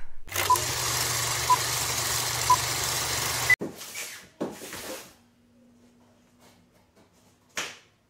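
Race-start sound effect: an engine running with three countdown beeps a second apart and a higher final beep, cut off suddenly about three and a half seconds in. Faint handling of a cardboard box follows, with a short scrape near the end as its tape is slit.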